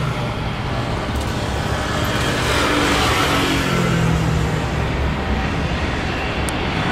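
Airbus A350's Rolls-Royce Trent XWB engines at takeoff thrust, a steady jet roar as the airliner rolls down the runway, rotates and lifts off, swelling a little about three seconds in.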